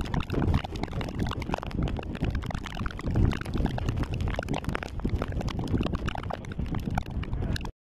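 Heavy rainstorm over a flooded street: rain and wind rushing, with many sharp crackles of rain and gusts hitting the phone's microphone. It cuts off abruptly near the end.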